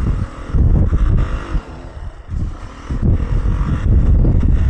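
Beta 480 RR single-cylinder four-stroke dirt bike engine being ridden hard, the revs surging up and down as the throttle is worked. It eases off around the middle, then opens up again.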